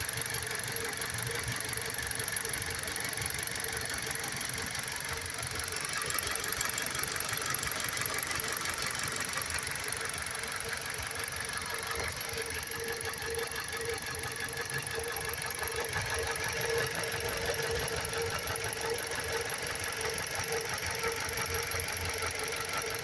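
An engine running steadily, with a constant hum.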